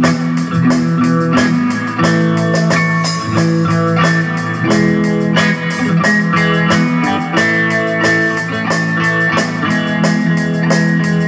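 Electric guitar playing over a steady drum beat, the instrumental intro of a song with no singing yet.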